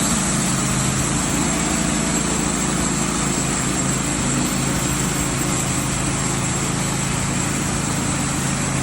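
Logging truck engine running steadily under load.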